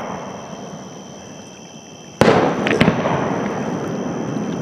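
Aerial fireworks: the rumble of an earlier shell burst fades away, then a loud, sudden shell bang about two seconds in, with a few sharp crackling pops just after it and a rolling rumble that carries on.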